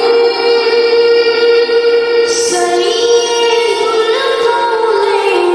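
Naat, an Islamic devotional song, sung in a high voice with long held notes and slow melodic turns over a steadily sustained lower note.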